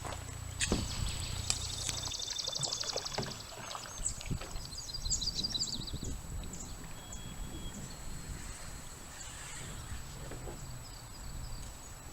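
Outdoor lakeside sounds: a bird gives a rapid high trill twice, over scattered knocks and handling noise from a boat. A low hum stops about two seconds in.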